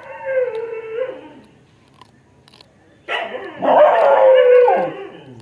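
Dog howling: two long drawn-out calls, the second louder, each sliding down in pitch at its end.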